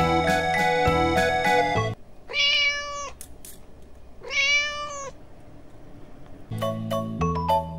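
Two cat meows, each under a second long and about two seconds apart, in a pause in the electronic keyboard music; the music stops about two seconds in and comes back near the end.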